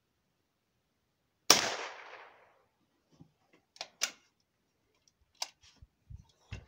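A Cooey Ace single-shot .22 rimfire rifle fires one shot about a second and a half in: a sharp crack with a short echoing tail. A few quieter clicks and knocks follow over the next few seconds.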